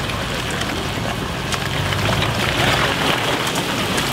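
Toyota 4Runner's engine running as the SUV drives through a deep muddy water hole, its tyres splashing and churning the water, with spattering throughout and the sound building slightly toward the end.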